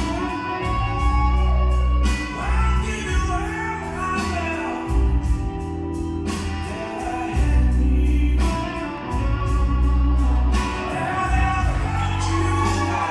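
A song playing: a singing voice over a heavy, sustained bass line.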